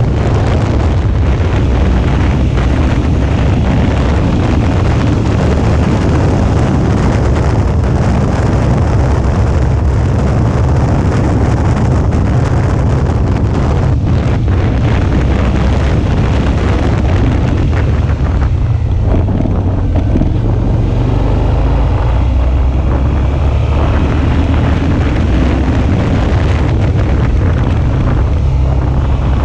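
Suzuki V-Strom 650 motorcycle being ridden, its 645 cc V-twin engine running under a heavy rush of wind buffeting the action-camera microphone.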